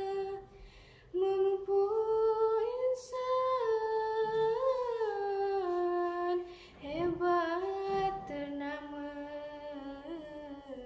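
A girl's solo, unaccompanied voice chanting a Malay syair. She holds long drawn-out vowels and slides between pitches in melismatic turns, pausing briefly for breath about a second in and again near seven seconds in.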